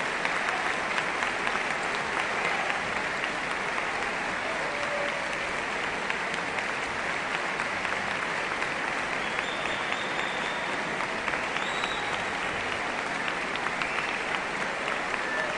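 A large concert-hall audience applauding steadily, with the band members on stage clapping along.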